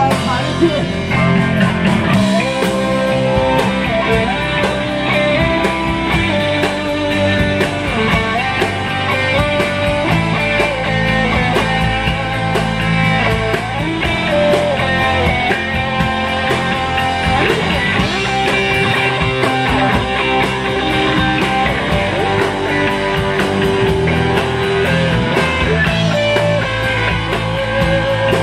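Live rock band playing: a Les Paul-style electric guitar with held and bending notes over bass guitar and drums, loud and without a break.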